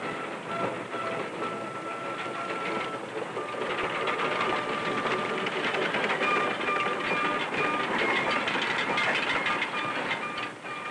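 Old steam train running, its wheels clattering over the rails with a steady high squeal above the noise. It grows louder about three and a half seconds in.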